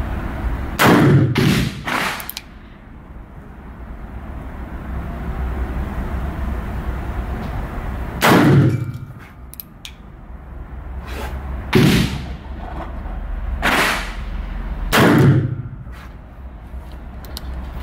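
Shots from a Spanish 1892 regulation revolver firing full-charge .32-20 Winchester rounds in an indoor range, each with a short reverberant tail. Three come in quick succession about a second in, then four more spaced two to four seconds apart.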